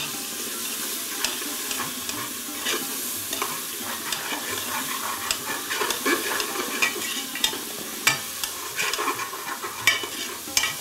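Chopped tomatoes sizzling in hot oil in a pressure cooker, stirred with a spoon that scrapes and clicks against the metal pot many times. The tomatoes have just gone in over browned onions and ginger-garlic paste and are frying down until they mash.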